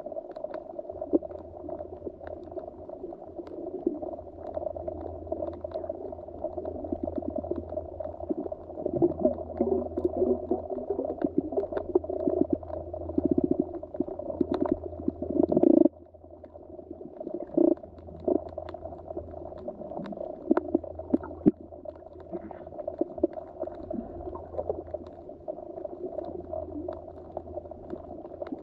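Muffled underwater ambience: a steady low hum under a murky, rumbling wash of water sound that swells now and then, with scattered faint clicks. The level drops abruptly about halfway through, then builds again.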